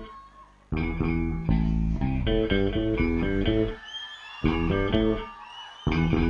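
Music for a dance performance: a plucked guitar-and-bass riff played in short phrases that stop and start, with brief pauses between them.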